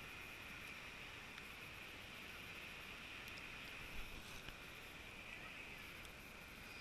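Faint, steady wash of shallow sea water and wind, heard muffled, with one soft knock about four seconds in.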